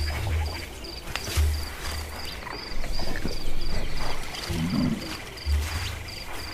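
Cartoon sound effects for a balloon-shaped giraffe straining to reach down: low soft thuds and a short low grunt about four and a half seconds in. Under them runs a savanna ambience with an insect-like chirp about three times a second.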